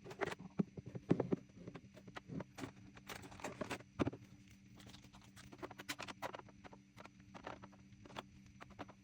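Small objects being handled and set down on a vanity table: a run of light taps, clicks and knocks, busiest in the first four seconds and sparser after, over a faint steady hum.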